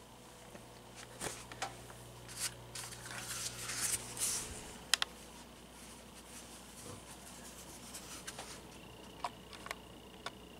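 Vintage cast iron spinner ceiling fan running at a middle speed, with a low hum that drops away about halfway through and scattered light clicks and ticks, which the owner can only imagine are the bearings as the fan wobbles.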